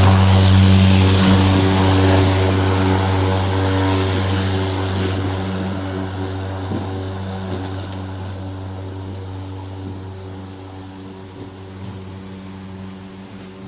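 Lawn mower engine running at a steady pitch, with a hiss over it near the start, growing gradually fainter.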